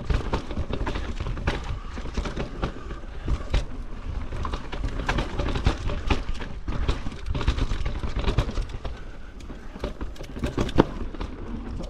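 GT Fury downhill mountain bike riding fast over a rough, rocky dirt trail: tyres crunching over dirt and stones, with constant clattering from the chain and frame at every hit over a low rumble. A sharp, loud knock comes near the end.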